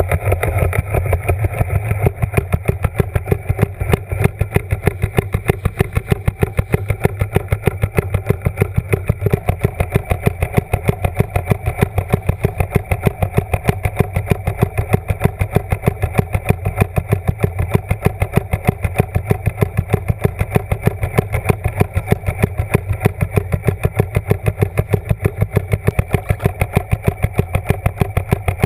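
A motor heard through the water, running steadily with a rapid, even pulsing.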